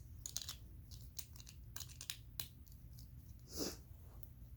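Faint scattered clicks and rustles of plastic Lego bricks being handled and pressed together, with a slightly longer soft scrape about three and a half seconds in.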